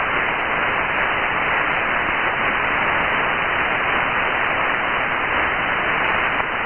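Steady hiss of band noise from an Icom IC-7700 transceiver receiving 6-metre upper sideband, with no station coming through. The hiss has no highs above about 3 kHz, the receiver's 3 kHz filter width.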